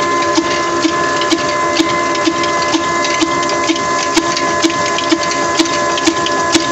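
Old black 26 HP desi horizontal single-cylinder diesel engine with large flywheels running steadily, a sharp knock about twice a second over a steady whine, belt-driving a chakki flour mill.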